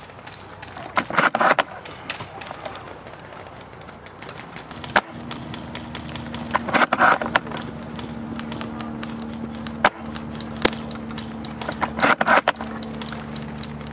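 Tokyo Marui VSR-10 Pro Sniper spring-powered bolt-action airsoft rifle: a few single sharp shots and three short rattling bursts of clicks as the bolt is worked. A steady low hum comes in about five seconds in and runs underneath.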